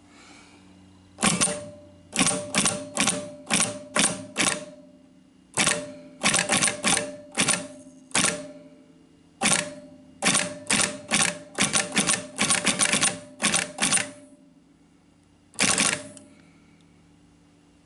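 Kleinschmidt WPE3 keyboard perforator punching Wheatstone code into paper tape: a string of sharp mechanical clacks, one per key struck, in uneven runs with short pauses, and a single last clack near the end.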